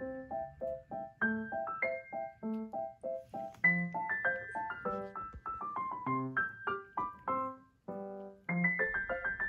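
Background music: a light piano tune of quick, short notes, several a second.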